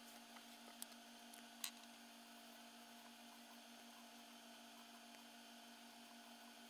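Near silence with a steady low electrical hum, broken by two faint clicks in the first two seconds.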